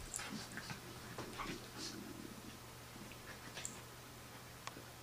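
Collie puppy and adult collie play-wrestling: faint, scattered short dog noises and scuffles, busiest in the first couple of seconds and sparser after.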